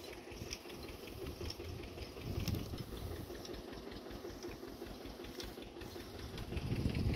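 Tractor engine running steadily, driving a borewell water pump, heard faintly as a fast, even low chugging.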